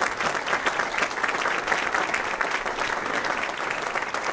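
Large indoor audience applauding steadily, many hands clapping at once.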